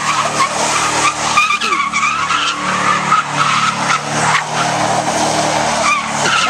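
Corvette spinning donuts: its rear tyres squeal continuously in a wavering pitch over the steady running of its V8 engine.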